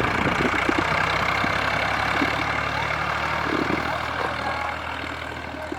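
Tractor diesel engine running steadily, with a dense mechanical clatter over it, fading slightly toward the end.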